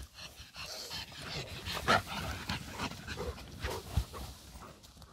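Dogs making short whimpers and yips, over rustling and footsteps on a path through bracken, with one louder sharp noise about two seconds in.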